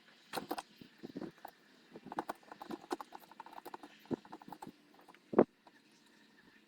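Wooden beehive boxes being handled, giving irregular hollow knocks and clicks, the loudest about five and a half seconds in.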